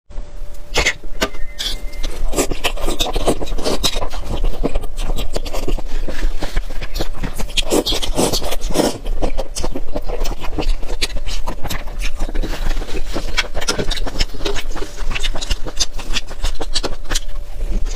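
Close-miked eating: chewing and mouth sounds from someone eating seafood and vermicelli, a dense stream of quick wet clicks and crackles.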